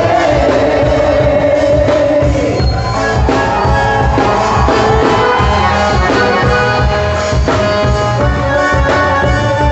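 Quadrilha junina music from a regional band: sustained melody notes over a steady percussion beat, with some singing.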